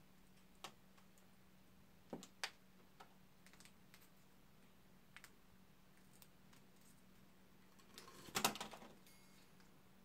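Sparse light clicks and taps over near silence, with a short cluster of louder ones about eight and a half seconds in.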